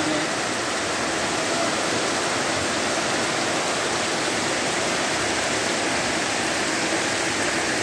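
Heavy rain pouring steadily, splashing into puddles and onto wet ground.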